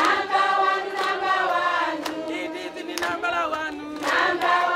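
A group of voices singing together, with several sustained notes that glide in pitch. A few sharp hits, about a second apart, punctuate the singing.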